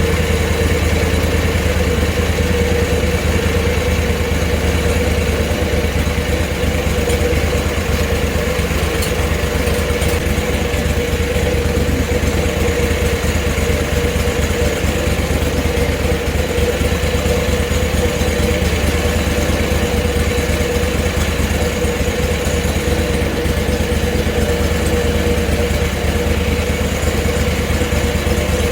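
Portable bandsaw sawmill's gas engine running steadily under load, with a steady hum, as the band blade cuts a board from a hard sugar maple log.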